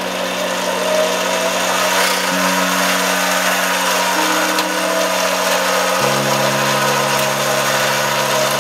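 Variable-speed mini lathe running empty, freshly cleaned, greased and reassembled: a steady whir from the motor and spindle gear train with a faint wavering whine. Background music with slow-changing low notes plays underneath.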